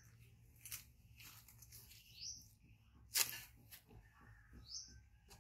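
Three short, high chirps, each rising quickly in pitch, about two and a half seconds apart. Between them are soft rustling and crackling from a disposable diaper being fastened, with one sharp crackle, the loudest sound, about three seconds in.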